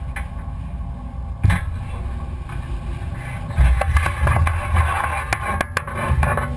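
Steady low rumble of a fishing boat under way, heard through a GoPro mounted on a metal-framed crab net. There is a sharp knock about a second and a half in, and in the second half a run of clicks and rattles as the net's frame is handled and swung.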